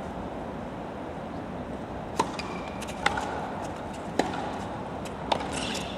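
Tennis rally: a ball struck by rackets four times, about a second apart, each hit a sharp crack over steady crowd and stadium background noise.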